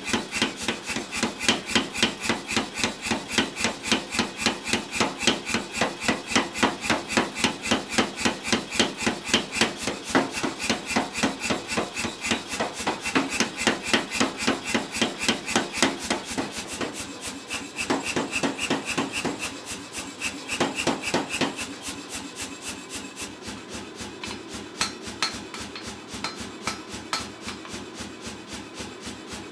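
Power hammer pounding a red-hot steel bar in a rapid, even run of blows, several a second, drawing the bar out to a taper. The blows turn lighter and quieter for the last several seconds.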